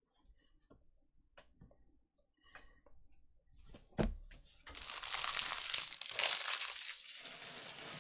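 A thump as a sealed trading-card hobby box is set down on the table about four seconds in, then the box's plastic shrink wrap crinkling loudly for about three seconds as it is handled. Light clicks and taps of cards being handled come before that.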